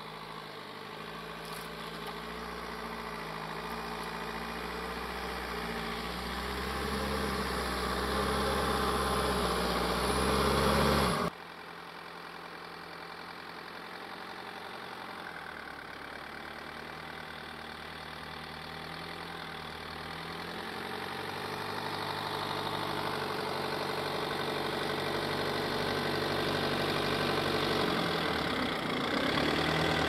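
GAZ Sobol 4x4 van's engine running under load as the van ploughs through deep untracked snow, growing steadily louder as it approaches. The sound cuts off abruptly about eleven seconds in, then starts again and builds until the van is close by near the end.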